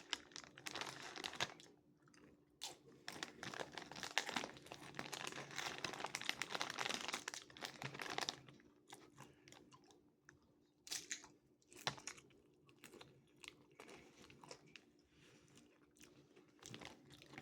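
A person chewing and crunching a mouthful of chips mixed with taco meat and cheese, close to the microphone, with irregular crisp crunches that thin out in the second half.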